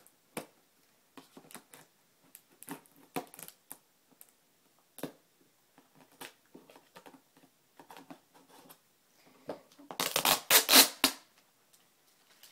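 Handling noises from opening a laptop's retail box: scattered clicks, taps and crinkles of cardboard and plastic wrapping being worked with a knife. Near the end comes a louder crackling tear of the wrapping that lasts about a second.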